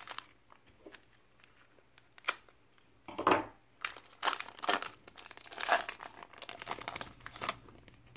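Foil wrapper of a Panini Mosaic trading-card pack being torn open and crinkled by hand, in a string of short rips and crinkles starting about two seconds in and stopping just before the end.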